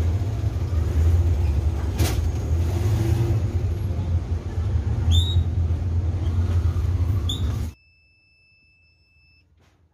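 A steady low mechanical hum with a sharp click about two seconds in and a couple of short rising squeaks, cutting off abruptly near the end, after which only two faint steady high tones remain.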